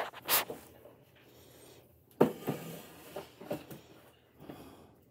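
Boxes and small items being handled on a desk: a brief rustle near the start, a sharp knock about two seconds in (the loudest sound), then a few lighter knocks.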